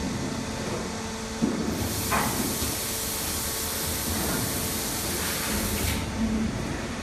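Foundry molding machine running with a steady hum; a clunk about a second and a half in, then a loud hiss of air for about four seconds that cuts off near the end.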